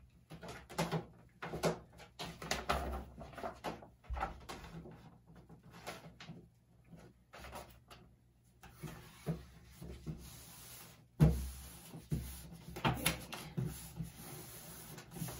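Large paper map rustling and crinkling as it is lifted, lined up and pressed flat by hand on a table, in short irregular bursts. One sharp knock about eleven seconds in.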